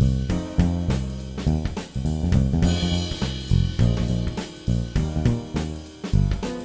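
Instrumental background music with a drum kit playing a steady beat over low sustained notes.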